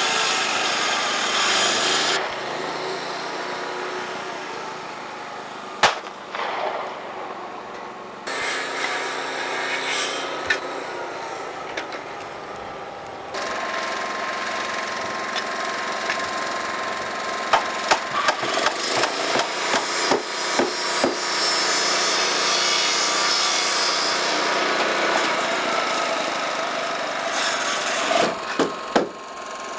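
Carpentry on wooden boards: sawing early on, then a quick run of hammer blows driving nails into the planks.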